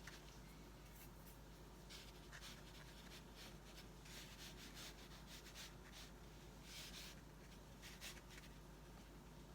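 Faint swishes of a watercolor brush stroking across paper, a series of short strokes with a slightly longer one near the end.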